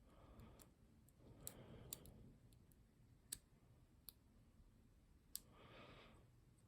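Faint, irregular clicks of a lock pick working the pins inside a 6-pin ZI Ikon padlock under light tension, single-pin picking from a deep false set.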